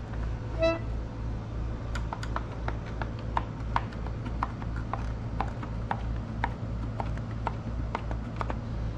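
A Tula button accordion (garmon) sounds one short reed note just under a second in. Its treble buttons are then pressed one after another, a run of sharp clicks at about two a second, while a button stuck down is letting air through the bellows.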